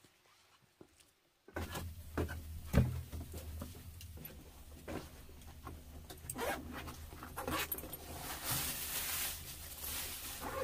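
A black fabric shoulder bag handled on a floor of bamboo poles: rustling and light knocks, then a zipper pulled along it about eight and a half seconds in.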